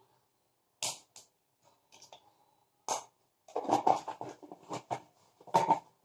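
A wooden spatula scraping and stirring thick, sticky peanut-and-sugar burfi paste in a nonstick kadai, heard as several short, separate scrapes with quiet gaps between them.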